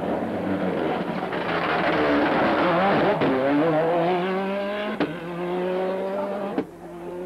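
Ford Escort WRC rally car passing close at speed, its engine note climbing as it accelerates. A sharp crack comes about five seconds in, after which the note holds steadier, and the sound drops away abruptly near the end.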